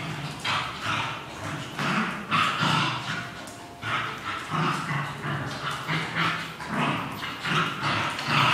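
Two dogs, a Shih Tzu and a mixed-breed dog, play-fighting and growling and yapping in short repeated bursts, some growls held for about a second.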